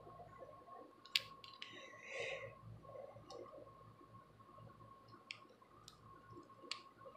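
Mostly quiet: a few scattered faint clicks and a soft scratch from a plastic rat-tail comb working at braided hair and the scalp, over a faint steady high hum.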